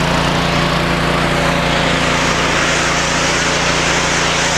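Northern Tool 3000 psi, 2.5 gpm pressure washer's engine running steadily, with the even hiss of the nozzle's water spray rinsing dirt off concrete.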